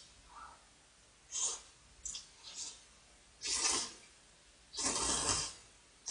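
A person slurping thick instant ramyeon noodles into the mouth: a short slurp about a second and a half in, two small ones, then two long, louder slurps around three and a half and five seconds in, the last lasting about a second.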